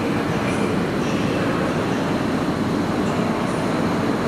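EP07 electric locomotive hauling a passenger train as it rolls slowly into the platform, a steady rumble of wheels and traction equipment.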